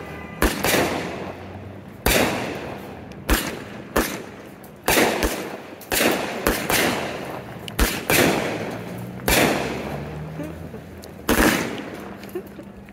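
Aerial fireworks shells bursting overhead, about a dozen sharp bangs at uneven gaps of roughly half a second to two seconds, each trailing off in an echo.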